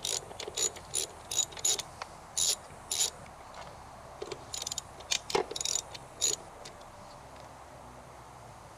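Hand ratchet wrench with an 8 mm socket clicking in short bursts as bolts are backed out, with one heavier knock about five seconds in; the clicking stops after about six seconds.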